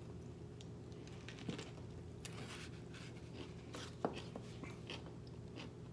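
Faint chewing and wet mouth clicks from eating a lettuce wrap of boiled pork belly, with one sharper click about four seconds in.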